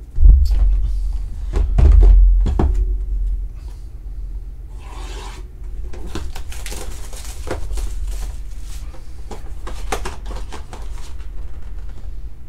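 A cardboard trading-card hobby box being handled and opened. Heavy thumps and knocks come first as the box is pulled from the stack and set down. Then the cardboard rubs, scrapes and clicks as the lid and flaps are worked open.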